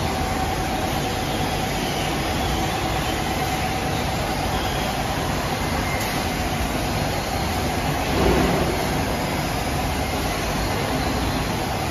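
Roller-coating line running: conveyor belt drive and machine fans make a steady mechanical hum with a thin whine. A brief louder rumble swells about eight seconds in.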